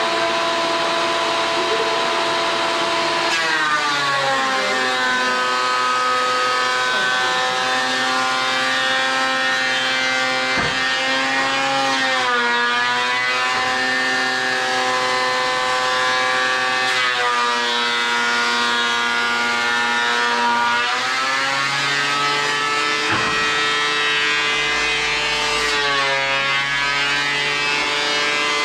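Vacuum cleaner motor running with a steady whine whose pitch shifts every few seconds, dipping and gliding between levels as the airflow changes.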